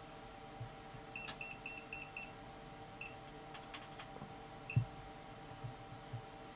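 Kaiweets HT100s non-contact voltage detector beeping in short high beeps: a quick run of about six, then two single beeps a couple of seconds apart. It is only just picking up the roughly 43 V AC test voltage, near the bottom of its detection range. A faint steady hum runs underneath, with a few soft clicks and a knock.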